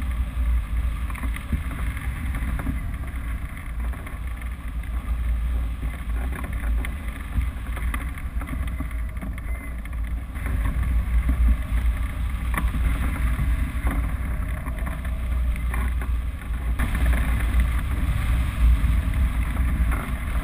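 Airflow rushing past a camera mounted on a hang glider's wing in flight, buffeting its microphone: a low rumbling rush that swells and eases.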